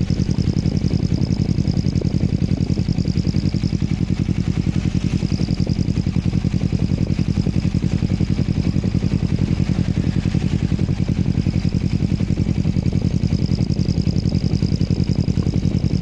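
Motorcycle engine idling steadily, fitted with an exhaust turbo whistler. The whistler gives a thin high whistle over the idle that swells and fades several times.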